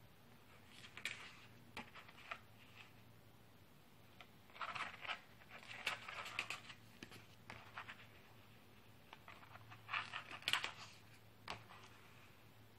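Glossy paper pages of a booklet being turned by hand: soft rustles, flaps and light slides of paper, in a few short bursts, the busiest a little past the middle and again near the end.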